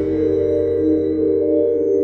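Background music of overlapping held tones that slowly shift, over a steady low hum.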